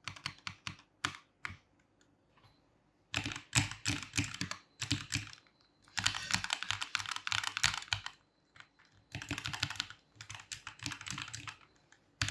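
Typing on a mechanical keyboard fitted with KTT Kang White V3 linear switches and Maxfit61 Frost keycaps: fast runs of keystroke clatter separated by short pauses, several times.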